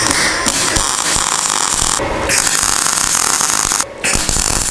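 MIG welder arc crackling as spot welds are laid through drilled holes, fusing a steel support bar to a sheet-metal panel. It runs in three bursts, with short breaks about two seconds in and near four seconds.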